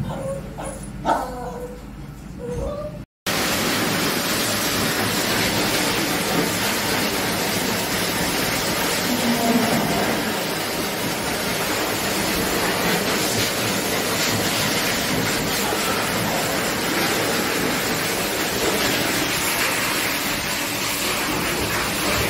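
A small wet dog gives a few short whimpers. After a sudden cut, a pet grooming blower dryer runs steadily as a loud, even rush of air.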